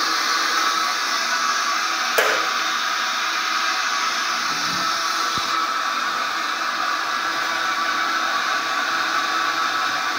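Steady fan-like whooshing noise, with a single sharp click about two seconds in.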